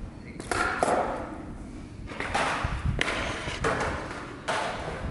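Skateboard on concrete: the board clacks and thuds against the ground several times, with rolling wheel noise between the knocks.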